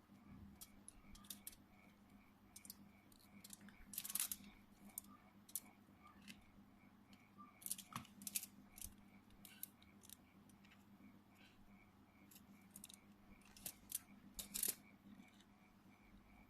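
Faint scattered clicks and light metallic taps of small hand tools being handled during fine soldering work, a few louder ones about four, eight and fifteen seconds in, over a low steady hum.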